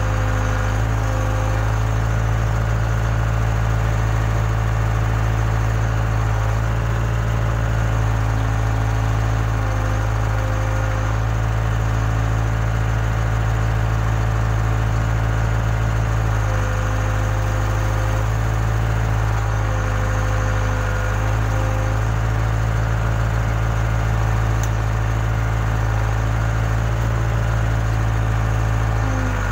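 Case 580K backhoe loader's diesel engine running steadily, with a higher whine that rises in and drops out several times.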